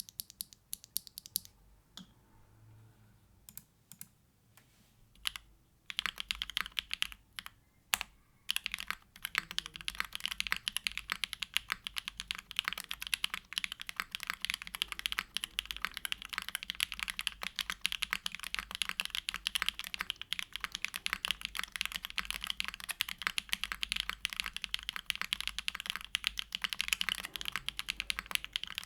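Typing on a TKD Cycle7 mechanical keyboard with a carbon-fibre plate, case foam, hand-lubed Bsun Raw switches and GMK Grand Prix keycaps. It starts as a few separate keystrokes, then becomes fast, continuous typing from about six seconds in.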